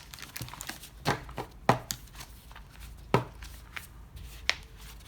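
Paper pages being handled and rustled, with four sharp knocks as they are set down or tapped on the table.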